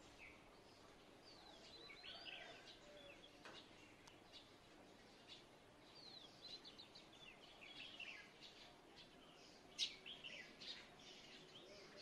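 Faint songbirds singing and chirping in short phrases of quick, falling notes, with a sharper single call about ten seconds in.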